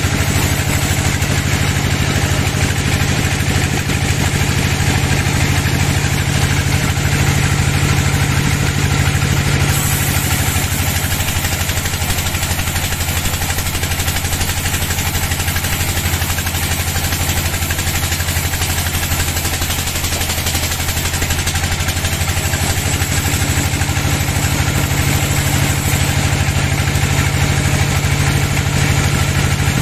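Sawmill band saw running steadily and ripping lengthwise through a teak log: a constant machine drone with the hiss of the blade in the wood.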